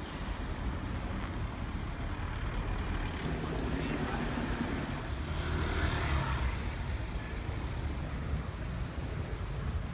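Street traffic: a motor vehicle passes close by, its engine and tyres swelling to their loudest about six seconds in and then fading. A steady low traffic rumble runs underneath.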